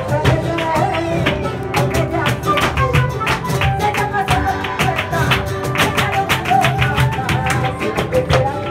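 Live flamenco music: acoustic guitar with rhythmic hand clapping (palmas), the claps coming as quick sharp strokes throughout.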